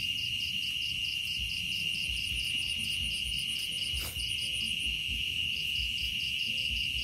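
Night insect chorus: crickets trilling in a steady high tone, with another insect pulsing above it about four to five times a second. The pulsing breaks off briefly about five seconds in. A single sharp click comes about four seconds in.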